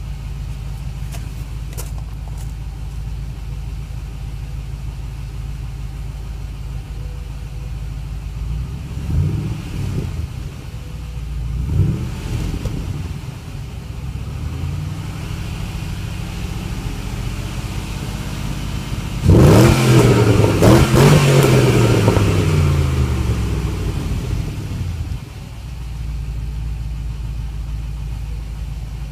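Pontiac GTO V8 through its stock exhaust with the factory Sport Appearance Package mufflers (Magnaflow-made GMPP): idling steadily, blipped twice about 9 and 12 seconds in, then revved higher to its loudest about 19 seconds in and held for a few seconds before winding back down to idle.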